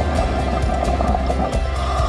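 Music with a steady, fast beat over sustained bass and mid tones.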